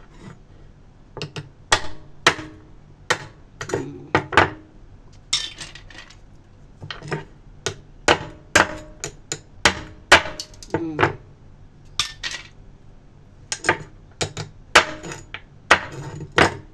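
Parang blade chopping the tips off siput sedut snail shells: a run of sharp, irregular knocks, often two in quick succession, as the blade cracks through shell against the chopping surface.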